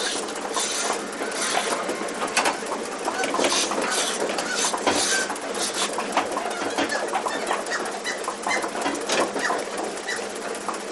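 Double-ten milking parlour in operation: a dense, irregular clatter of clicks and short hisses from the milking equipment.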